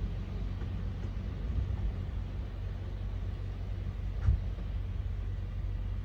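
Storm wind buffeting the microphone: a steady low rumble, with one sharper thump from a gust about four seconds in.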